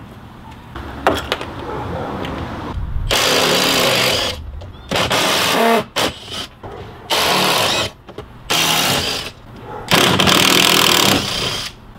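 Cordless impact driver with a 5/16 socket hammering out bolts, in five short bursts with handling noise between, one bolt after another.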